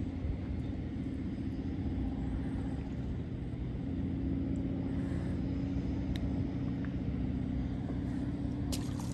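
A steady, low mechanical hum of constant pitch, with a few faint clicks near the end.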